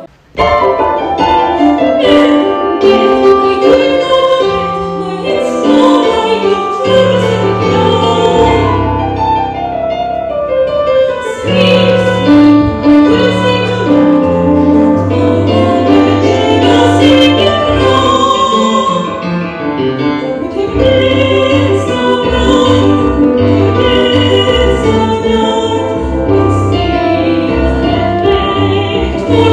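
A woman singing through a handheld microphone, accompanied on a digital keyboard playing piano-like chords and bass notes.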